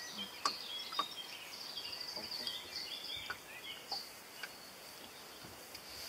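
Quiet outdoor ambience on the water: small birds chirping now and then over a steady high-pitched hiss, with a few faint clicks and knocks.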